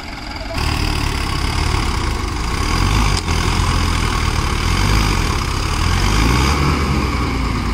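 Farm tractor diesel engine running, stepping up louder about half a second in and holding steady.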